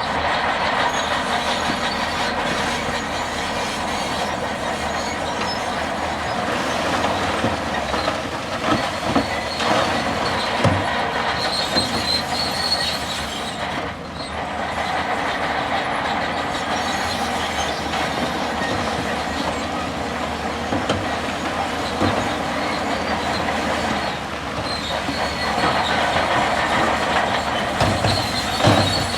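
Bulldozer at work: the engine runs steadily under the squeal and clank of its steel crawler tracks, with occasional knocks.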